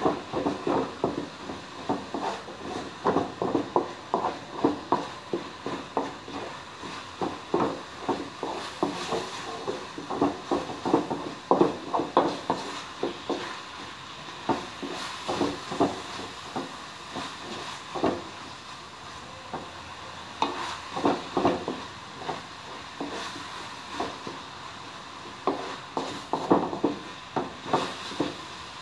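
Wooden spatula stirring food in a wok, knocking and scraping against the pan in irregular runs of a few strokes a second, with short pauses, over a steady faint sizzle of frying.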